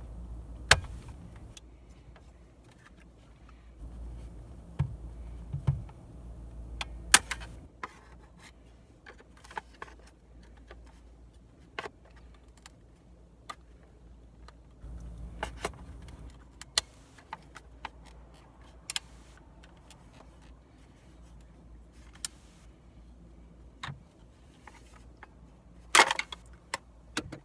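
Irregular sharp plastic clicks and knocks as a thin flathead screwdriver pries a snap-in dashboard clock out of a 1998–2002 Toyota Corolla's dash. There is a cluster of louder clicks near the end as the clock works free of its clips.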